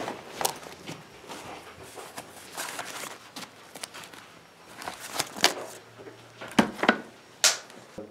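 Rustling and handling of a black fabric travel bag and the clothes inside it as it is searched. Several sharp knocks and clicks sound through it, the loudest in a cluster from about five to seven and a half seconds in.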